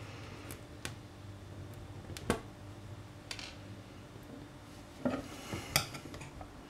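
Melted plastic being picked and scraped off a glass cooktop, heard as scattered sharp clicks and scratches. About five seconds in comes a quick run of clicks as a metal knife blade meets the glass, over a faint steady low hum.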